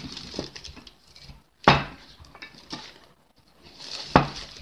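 A wooden rolling pin handled on a kitchen table: two sharp knocks, one a little under two seconds in and one about four seconds in, with light taps and rustling of dough and parchment between them.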